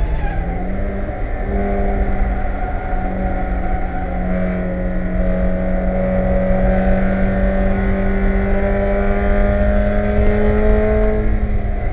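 A Spec Miata race car's 1.8-litre four-cylinder engine, heard from inside the cockpit. Its pitch climbs briefly about a second in, then holds nearly steady, with road and wind rumble underneath.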